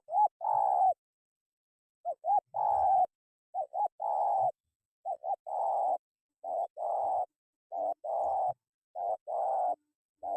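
Spotted dove (tekukur) cooing: a phrase of two quick short notes followed by a longer coo, repeated over and over about every second and a half.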